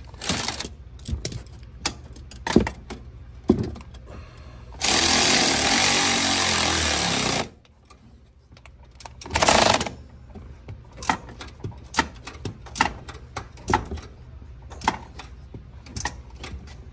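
Electric ratchet running in two bursts, a long one of about two and a half seconds near five seconds in and a short one near ten seconds, driving the nut onto the shock mount bolt of a lift bracket. Sharp clicks and clinks of the tool and hardware come between the runs.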